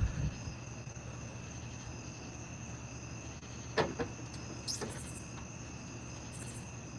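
Crickets trilling steadily over a low hum, with one short knock about four seconds in as the plastic bucket is set down inside the mini fridge.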